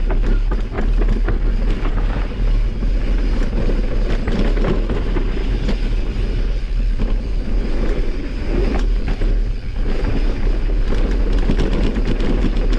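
Mountain bike ridden over a rough trail: a continuous rattle of many small knocks and clicks from tyres and frame over a heavy low rumble of wind on the microphone.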